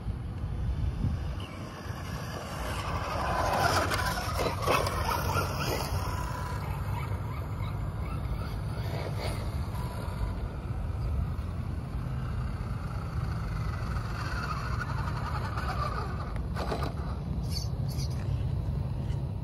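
Steady wind noise on the microphone, with the whine of an electric radio-controlled truck's motor and its tyres on asphalt swelling and fading as the truck passes, about four seconds in and again about three-quarters of the way through.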